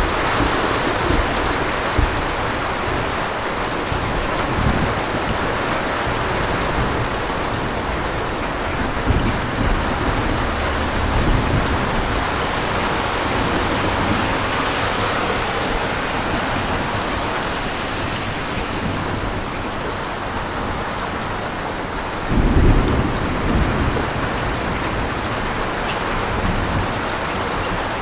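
Thunderstorm: steady heavy rain on surfaces with rolling low thunder rumbles underneath, and a louder thunder roll a little over three-quarters of the way through.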